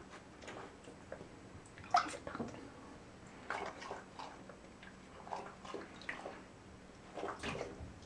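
Bathwater splashing and sloshing in short, irregular bursts as a golden retriever puppy moves about in a partly filled tub, the loudest splash about two seconds in.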